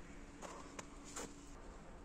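A few faint, irregular footsteps and rustles in wet snow, as someone walks up and crouches down.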